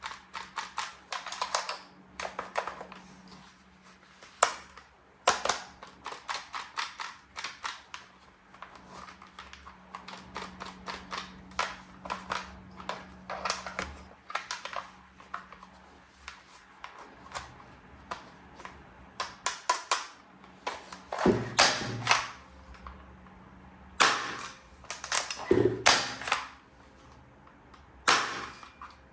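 Hard plastic toy parts being handled, making quick clicks and rattles in irregular flurries. The clicks grow louder and come in clusters in the last third.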